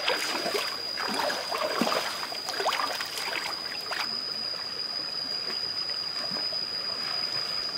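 Splashing of feet wading through a shallow, rocky stream, giving way about four seconds in to the steady rush of running water. A thin, steady high-pitched tone sits over it throughout.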